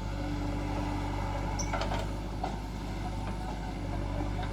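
Diesel engine of heavy earth-moving machinery running steadily at a low, even note. A few short clicks and knocks come about two seconds in, with fainter ones later.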